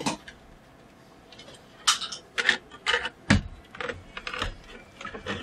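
Irregular plastic clicks and knocks from a laptop's display panel assembly being handled and fitted into place, about eight sharp taps spread over a few seconds.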